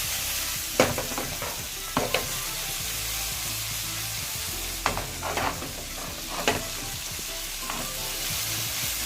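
Shrimp sizzling in hot curry oil, stirred with a utensil that clicks against the pan several times.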